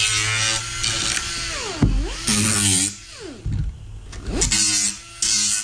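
Power sander working a plywood panel: a steady motor whine that twice sags in speed and spins back up, with short bursts of scratchy hiss as the pad bites into the wood.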